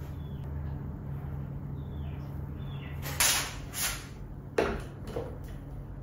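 Items being set down and arranged on hard bathroom surfaces. Plastic bottles go onto a tiled shelf and a picture frame onto a ceramic toilet tank. A few short knocks and scrapes come about halfway through, over a low steady hum.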